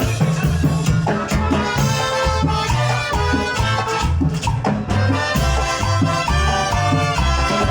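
Live tropical dance orchestra playing an upbeat Latin number: held ensemble chords over a steady pulsing bass beat.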